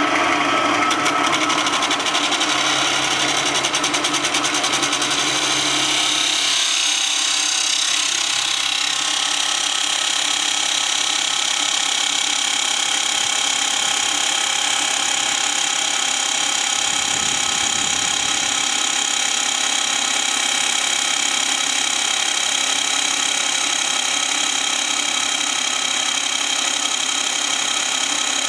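Three-phase chop saw with a 12-inch blade running free, its motor and spinning blade giving a steady whine.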